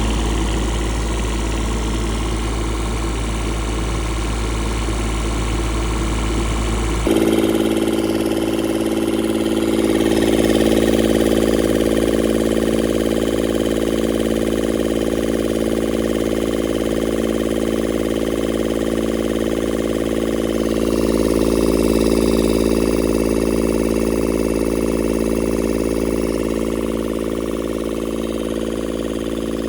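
Kubota D722 three-cylinder diesel engine of a Denyo TLW-300 engine welder running steadily. The sound changes abruptly about seven seconds in, then the engine runs on with slight swells in level.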